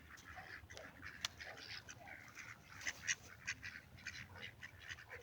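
A flock of ducks quacking, many short overlapping calls, while being fed bread.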